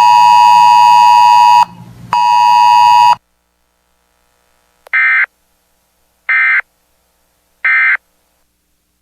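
Weather radio alert signalling: two long, steady, buzzy electronic tones in the first few seconds, then three short identical data bursts about a second and a half apart. The three bursts are the Emergency Alert System end-of-message code that closes the broadcast alert.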